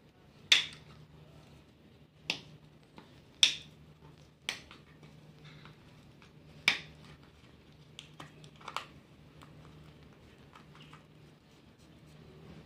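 A cat licking milk from the spout of a carton, with sharp wet clicks of its tongue and mouth coming irregularly, about one every second or two and louder in the first seven seconds. A faint steady low hum runs underneath.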